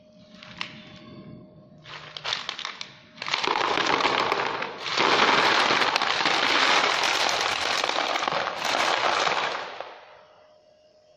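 Gravel pouring out of a bait boat's released hopper and rattling into a plastic crate below. A few clicks come first, then a dense clatter of stones builds about two seconds in, runs for about seven seconds and stops near the end.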